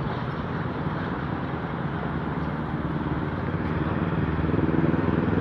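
Road traffic: a motor vehicle engine hums steadily, getting louder near the end as a vehicle draws close.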